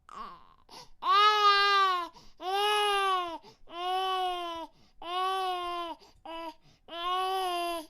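A baby crying in a steady rhythm of about six wails, each roughly a second long and arching up then down in pitch, with short breaths between them. One wail near the end is clipped short.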